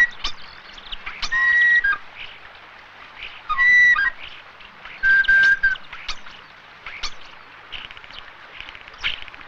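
A small hand-held whistle blown in three short held notes, each a clear steady tone, followed from about six seconds in by scattered short, high bird chirps.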